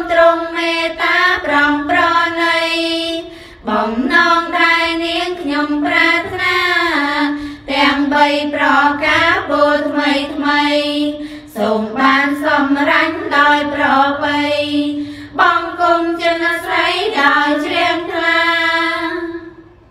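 A high female voice singing a slow song in Khmer, in long held phrases of about four seconds each with short breaks between them. The singing fades out near the end.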